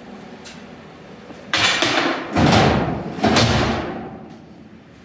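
Three heavy thumps in quick succession, about a second and a half to three and a half seconds in, each trailing off briefly.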